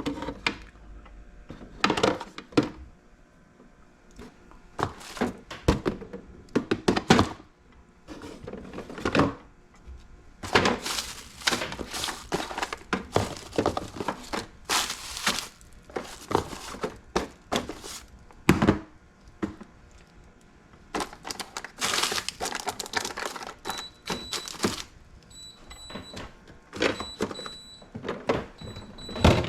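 Kitchen clatter of household cleaning: repeated thunks and knocks of things being handled and set down, with noisy bursts of rubbing and scrubbing. Near the end a short high electronic beep repeats several times.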